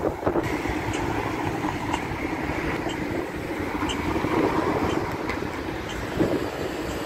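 City street traffic noise: a steady rumble of passing vehicles.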